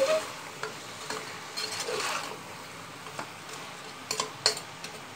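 Metal spatula stirring chunks of goat head meat in a pressure cooker, with scattered scrapes and clinks against the pot; the loudest are two sharp clinks about four seconds in. A faint steady sizzle of frying runs underneath.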